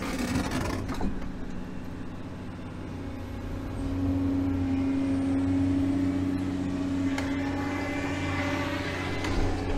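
Excavator engine and hydraulics running under load, heard from inside the cab while the bucket digs dirt. A steady low hum, with a steady whine that gets louder about four seconds in.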